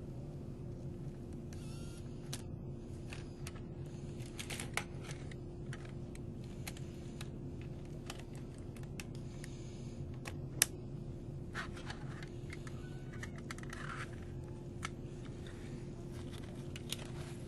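Steady hum of a stopped 485-series electric car's onboard equipment, with one constant tone running through it. Scattered light clicks and ticks sound over the hum, with one sharper tick about ten seconds in.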